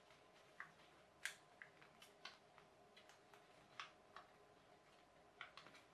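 Sheet of paper being folded and creased by hand: faint, irregular crinkles and clicks, a few sharper ones, with a small cluster near the end.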